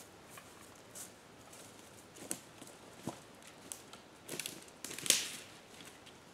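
Footsteps crunching through dry leaves and twigs on the forest floor, with irregular crackles and a louder crackling crunch about five seconds in.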